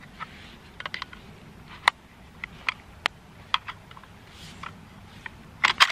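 Sharp, irregular metallic clicks of a bolt-action rifle being handled and loaded, with a quick run of clicks near the end.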